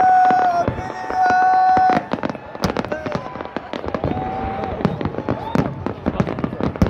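Fireworks display going off: a dense, irregular run of sharp bangs and crackles from bursting aerial shells. Long held high-pitched cheers from the crowd are the loudest part in the first two seconds, with shorter ones about halfway through.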